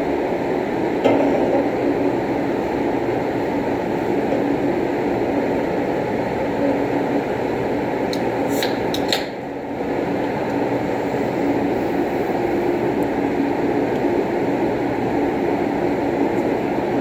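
Steady background din of a billiard hall, with a sharp click about a second in and a quick cluster of sharp clicks a little past the middle.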